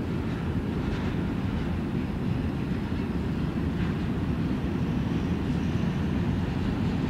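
Freight train rolling past, covered grain hopper cars going by with a steady low rumble.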